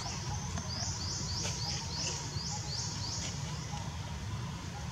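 A series of about eight high chirps, each falling slightly in pitch, roughly two a second, stopping after about three and a half seconds, over a steady low rumble.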